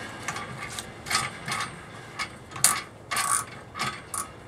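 Keyless chuck of a Ridgid 18-volt cordless drill being tightened onto an ice auger shaft: several short ratcheting bursts in a row.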